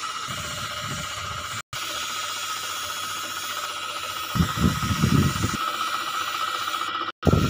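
Compressed-air spray gun hissing steadily as it sprays colour-matching finish. Low rumbling bursts come in around the middle and again near the end.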